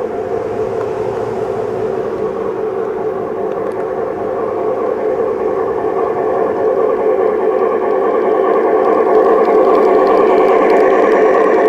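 Model Shay geared locomotive running along the garden-railway track toward the microphone with its log train, a steady mechanical running sound of motor, gearing and wheels on rail. It grows louder over the middle of the stretch as the engine draws close, then holds.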